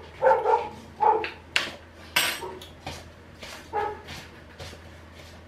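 A dog barking a few short times, with a couple of clinks of kitchen pots or utensils about two seconds in.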